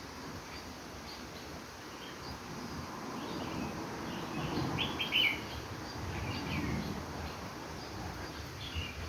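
A bird chirping in short, high notes, with a quick run of several chirps about halfway through, over a low rumbling background noise.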